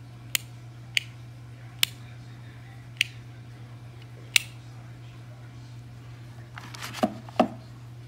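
Rocker switch on a Seaflo three-way bilge pump switch panel clicking five times, roughly once a second, as it is flicked between its AUTO, OFF and MAN settings. Near the end comes a brief rustle and two louder knocks as the plastic panel is handled and set down, over a steady low hum.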